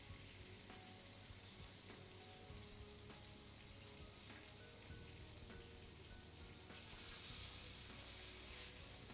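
Beef contre-filet searing in hot oil in a frying pan, a steady sizzle that grows louder about seven seconds in as the meat is moved with tongs; this is the quick pan-searing stage before the meat goes into the oven.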